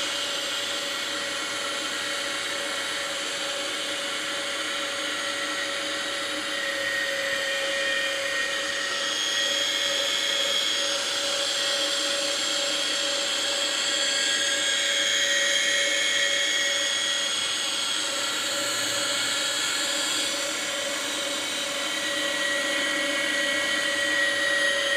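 Electric meat grinder running steadily, its motor whining at an even pitch as it grinds minced meat with onions and green herbs through the cutting plate.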